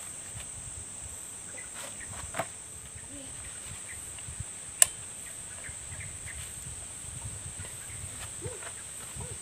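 A steady high-pitched insect drone, with a few small clicks and knocks from handling the brush cutter's metal drive shaft, and one sharp click about five seconds in.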